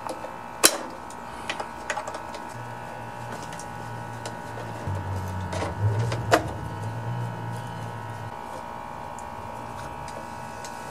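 Sharp metal clicks of a hand tool loosening the bolts that hold the recoil starter housing on a small Honda engine. A low drone rises underneath for a few seconds in the middle.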